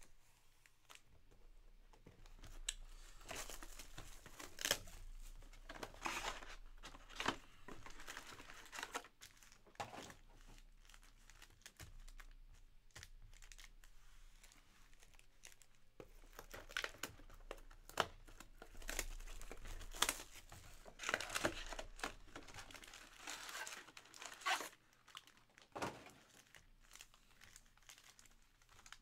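Foil trading-card packs crinkling as they are handled, shuffled and stacked by hand, in irregular bursts with a quieter stretch near the middle.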